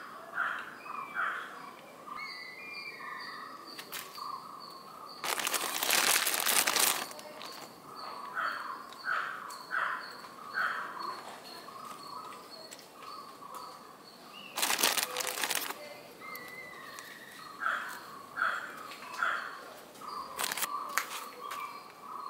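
Birds chirping outdoors, short chirps repeated in quick runs, with a faint high steady call behind them. Twice, about five and fifteen seconds in, a loud burst of rustling noise lasting a second or two covers them.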